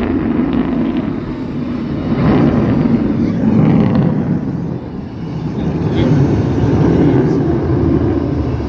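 Jet noise from U.S. Air Force Thunderbirds F-16 Fighting Falcons flying their display, loud and rising and falling in waves as the jets pass.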